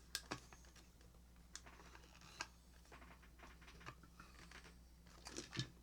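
Faint, scattered clicks and taps of small plastic parts and tools being handled while an opened Bluetooth speaker is taken apart, with a short cluster of taps near the end.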